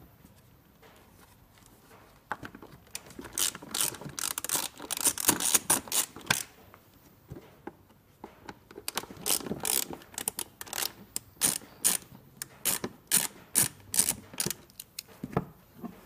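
Hand ratchet clicking in quick runs as the screws holding the plastic air filter housing cover are backed out. There are two spells of clicking, with short pauses between turns.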